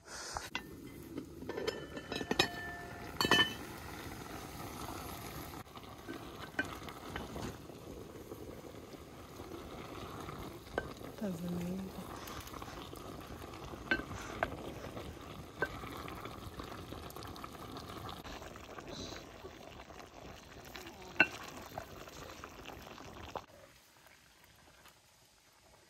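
Cabbage stew simmering in a metal pot over a wood fire while a spoon stirs it, clinking and scraping against the pot a few times, loudest about three seconds in.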